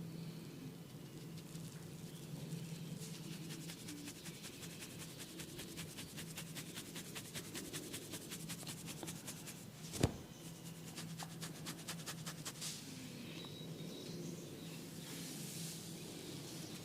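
Head-massage sounds: a fast, even run of light clicks, roughly seven a second, with one much louder sharp crack about ten seconds in.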